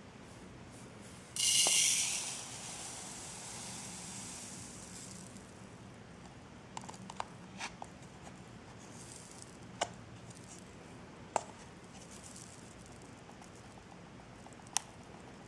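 Activated carbon granules from a cut-open pitcher water filter cartridge pouring into a clear plastic cup: a sudden rush of grains about a second and a half in that trails off over a few seconds. A few scattered light ticks follow.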